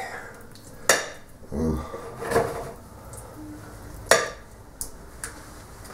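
Metal utensil clinking and scraping against a metal baking tray while barbecue sauce is spread over pork ribs. Two sharp clinks, about one second in and about four seconds in, with a few lighter taps and scrapes between and after them.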